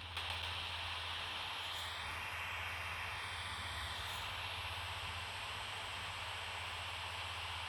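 Steady static hiss from the HamGeek ATS200 radio receiver's speaker, with a faint bending whistle about two to four seconds in.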